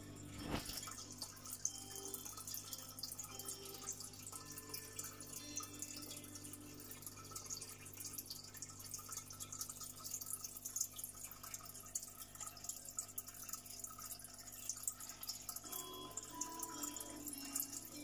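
Aquarium water bubbling and trickling from the tank's aeration: a dense, fine crackle of bursting bubbles over a steady low hum. There is one sharper knock about half a second in.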